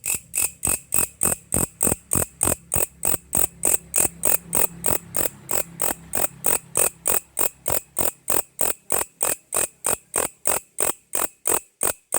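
A grasshopper (belalang) singing close by: a steady train of short, sharp, high-pitched chirps, about three and a half a second.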